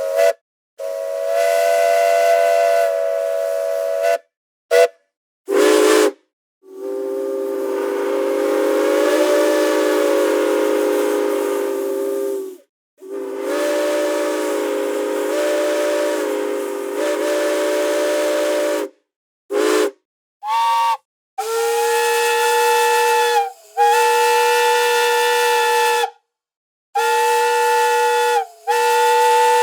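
Steam train whistles blowing about a dozen blasts, from short toots to long blasts of about six seconds, with steam hiss and abrupt cuts to silence between them. Several notes sound together in a chord. The pitch changes from one group of blasts to the next, lower in the long middle blasts and higher in the later ones.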